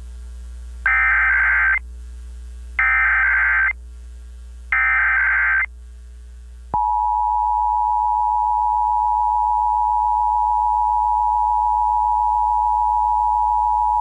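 Emergency Alert System broadcast tones: three short bursts of SAME header data, about a second each, then about seven seconds in the steady two-tone EAS attention signal begins and holds.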